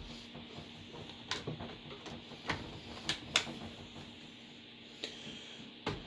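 A handful of sharp plastic clicks and knocks, spaced irregularly, as a Compaq LTE Elite laptop is lifted and lined up on its Compaq SmartStation docking station. A faint steady hum from the docking station's fan runs underneath.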